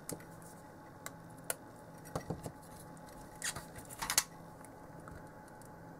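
Light clicks and rustles of a small printed circuit board being handled, with a short scrape about three and a half seconds in and another as the board is set down on the bench mat about four seconds in.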